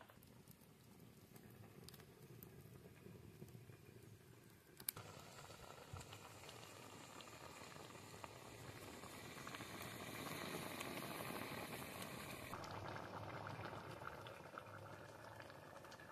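Liquid bubbling hard in a kadai over a wood fire, with a soft, even fizzing and popping. It gets louder about five seconds in.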